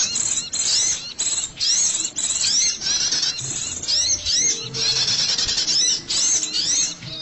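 Sogok ontong (sogon) lure call: a rapid run of high, sharp chirps that sweep up and down, mixed with buzzy rattling notes, repeating several times a second with only short breaks.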